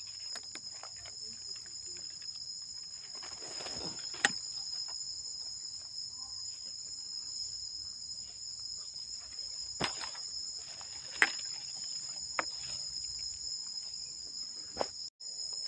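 Steady, high-pitched drone of a forest insect chorus. Over it come the rustle of dry leaf litter and several sharp clicks and snaps as hands pick mushrooms from the forest floor.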